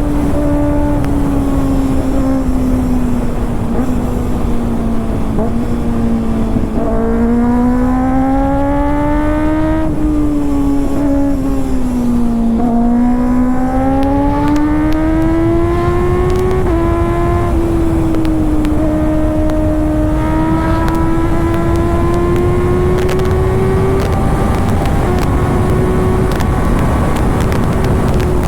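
Kawasaki ZX-6R's inline-four engine through an SC-Project exhaust, running at fairly high revs held almost steady, its pitch drifting slowly down and up several times, over a low rushing noise.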